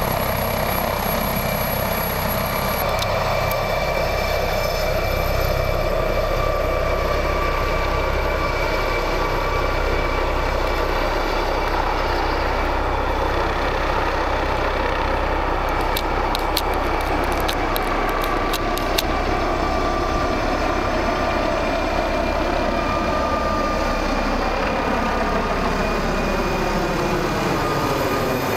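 Police helicopter running at take-off power as it lifts off and climbs away overhead: a steady, loud mix of turbine whine and rotor noise. Near the end its pitch glides downward as it moves away.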